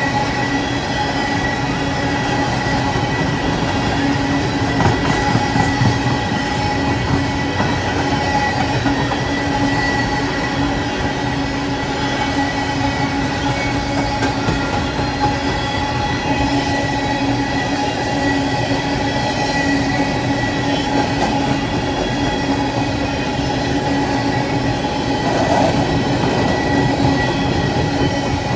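Freight train of open-top hopper cars rolling past: a steady rumble of steel wheels on rail, with a steady high whine running through it.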